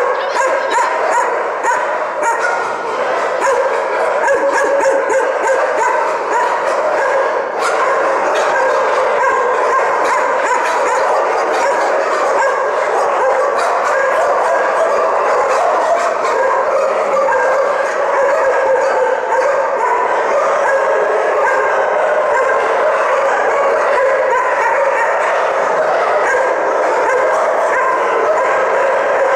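Many kennelled shelter dogs barking, yipping and whining all at once in a constant, unbroken din.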